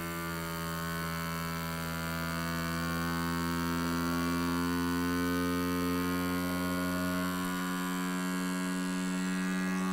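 Ninja FreshVac battery-powered vacuum pump running on a sealed single-serve blender cup, its small electric motor humming steadily as it pumps the air out of the cup. The hum grows slightly louder over the first few seconds, then holds even.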